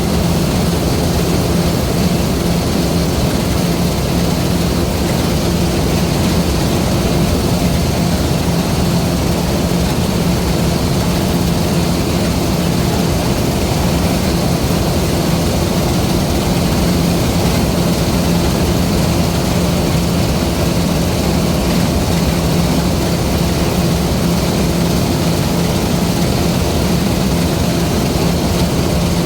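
LOVOL RG130 EVO rice combine harvester running steadily at working speed, a constant engine drone with a steady hum and no change in pitch or level.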